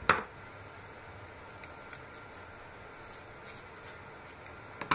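Small handling sounds of soldering-iron parts and tools on a wooden workbench, with two brief sharp knocks: one right at the start and a louder one near the end.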